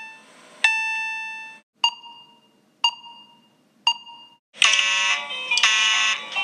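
Fire alarm sounding: a chime-like tone struck about once a second and fading after each strike, then about four and a half seconds in a much louder, harsh fire alarm horn starts in pulses.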